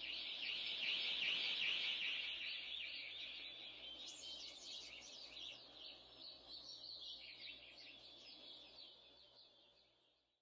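Many small birds chirping in a dense chorus, laid as a recorded ambience at a song's end. It swells in the first couple of seconds, then fades out gradually to silence shortly before the end.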